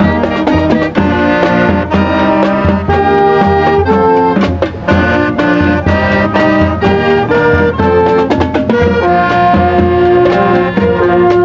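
High school marching band playing: brass melody over a steady drum beat.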